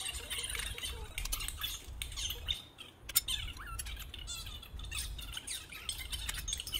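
Gloved hands fitting oiled clutch plates into a Honda CR125 clutch basket: many short squeaks of the gloves rubbing on the plates, with light clicks of the plates seating against each other.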